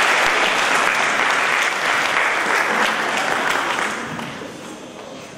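Audience applauding in a hall, fading out over the last couple of seconds.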